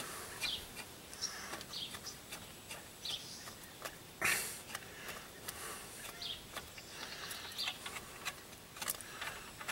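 Light metallic clicks and scrapes of a new front wheel hub bearing assembly being worked by hand into the steering knuckle, with one louder scrape about four seconds in. Birds chirp faintly now and then.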